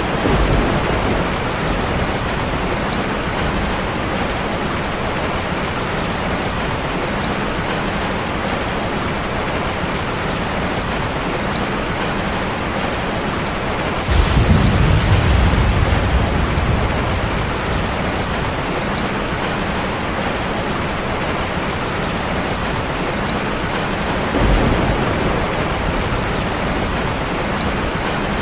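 Steady heavy rain with rumbles of thunder. A low roll comes just after the start, a louder one about halfway through lasts a couple of seconds, and a shorter one comes near the end.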